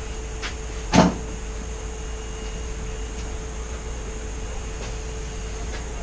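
A single sharp thump about a second in, with a couple of faint clicks, over a steady hum.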